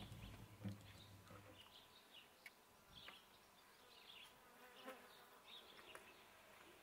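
Near silence: faint outdoor ambience with scattered, brief high chirps, after the last of a guitar song fades out in the first second or two.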